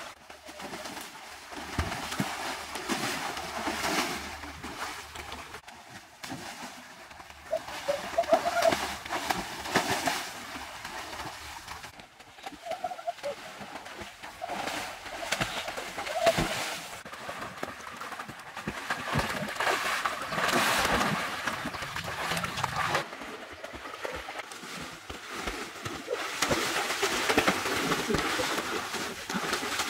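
Water splashing and churning as swimmers kick and stroke through a pool, surging up and down in loudness, with a few short bird calls over it.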